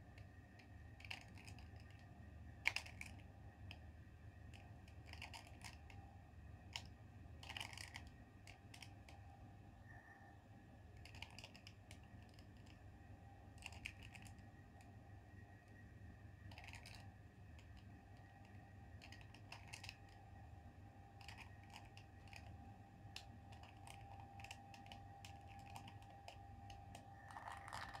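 Faint, irregular clicking of a plastic 2x2 Rubik's cube as its faces are twisted by hand through a sequence of turns, over a low steady hum.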